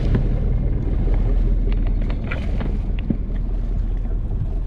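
Wind rushing over the microphone with sea water washing around a small wooden boat, and a few faint ticks in the middle.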